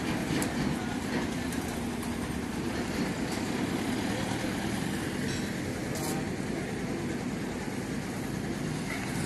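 Steady outdoor road-traffic noise, with faint voices.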